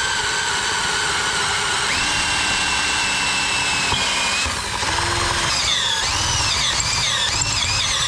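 Power drill running an 11/32-inch bit into the steel frame rail: a steady motor whine with a high squeal from the cutting bit. Over the last few seconds the squeal swings up and down in pitch.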